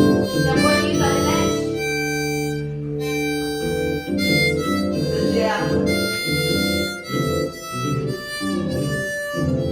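Harmonica playing chords, with short rhythmic blown notes around one long held chord.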